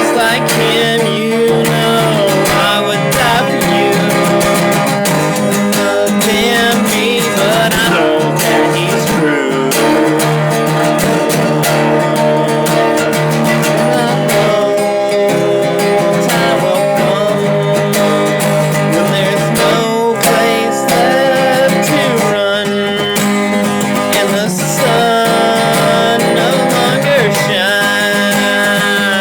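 Music: an instrumental passage of a song, with acoustic guitar strumming.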